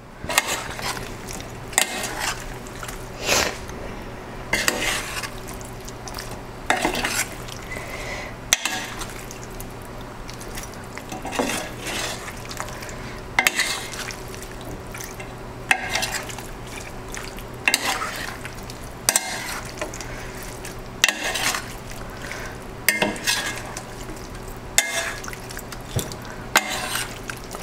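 A metal spoon scraping and clinking against a stainless steel pan as shell-on shrimp are stirred through a buttery sauce, in irregular strokes every second or two, over a faint steady low hum.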